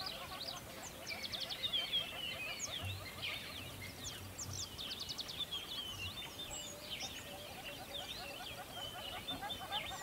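A dense chorus of many birds calling at once: a constant overlapping chatter of quick chirps, short whistles that slide up and down, and rapid trills.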